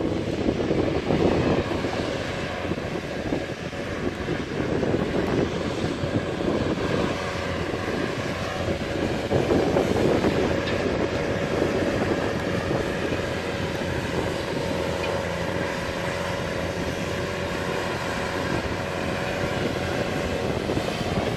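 Claas Xerion tractor's diesel engine running steadily under load while pulling a Köckerling cultivator through the soil, with a steady whine that comes through more clearly in the second half.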